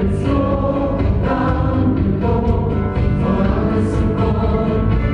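A stage-musical ensemble singing in chorus over band accompaniment with a heavy bass.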